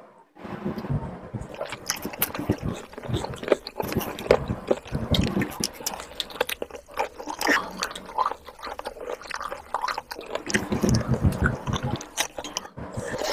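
A hand mixing rice with chicken curry gravy on a plastic plate, close-miked, making a dense run of irregular wet clicks and squishes, with heavier clusters about five seconds in and near the end. Mouth sounds of chewing are mixed in.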